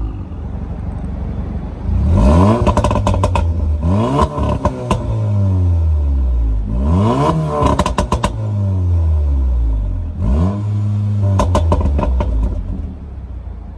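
Volkswagen Golf R Mk7.5's turbocharged 2.0-litre four-cylinder revved about four times from idle through an Armytrix valved exhaust with the valves closed in sport mode. Each rev falls back with a cluster of crackles and pops on the overrun.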